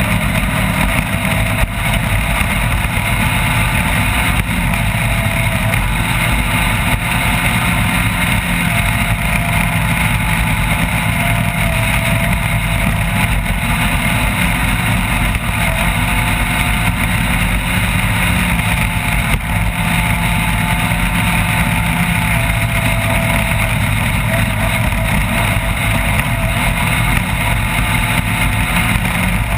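Off-road race vehicle's engine running steadily under way, its pitch wavering slightly, over a loud constant rush of noise.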